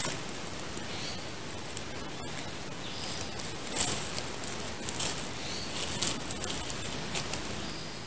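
Dry leaf litter rustling and crackling underfoot on a forest floor, with a run of sharper crackles in the middle few seconds over a steady outdoor hiss.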